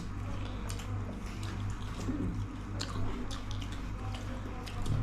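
Close-up eating sounds: chewing and wet, squishy mouth and hand noises with scattered small clicks while rice and saag soup are eaten by hand. A steady low hum runs underneath.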